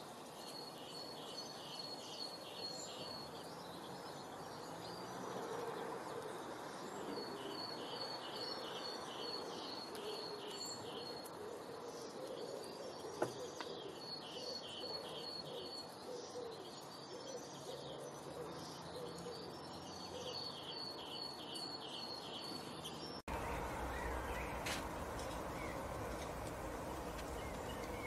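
A songbird sings the same short phrase of quick, evenly spaced high notes several times, with pauses between, over steady outdoor background noise. There is a single sharp click about 13 seconds in, and near the end the background switches to a louder, fuller outdoor sound.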